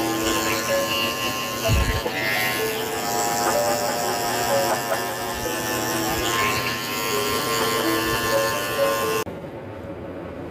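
Cordless pet grooming clippers buzzing as they trim a Yorkshire terrier's face, with background music over them. The clipper sound cuts off suddenly about nine seconds in, leaving the music.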